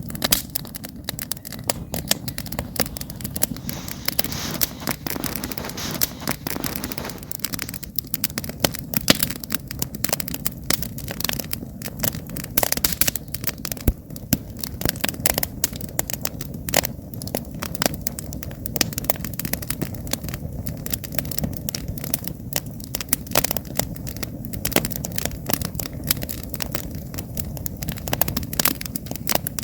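Wood campfire burning, crackling and popping irregularly over a steady low rumble of the flames.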